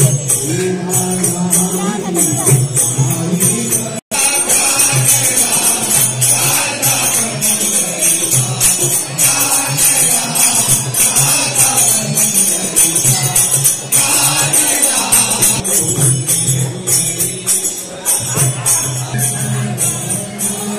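Devotional bhajan: a group singing along with a harmonium over steady, rhythmic metallic jingling of hand percussion. The sound drops out for an instant about four seconds in, then the music carries on.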